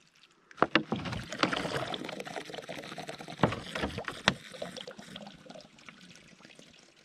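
Water gushing out of a cut-open one-gallon plastic water jug and splashing onto wet ground, with several sharp crackles from the thin plastic as the jug is gripped and tipped. The flow tapers off in the last couple of seconds.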